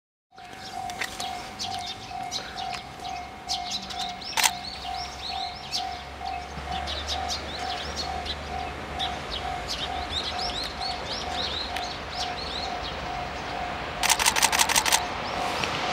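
A railway level-crossing bell rings as an electronic tone pulsing at a steady rate, the warning for an approaching train, while small birds chirp. About 14 s in there is a quick rattle of sharp clicks, and a low train rumble begins to build near the end.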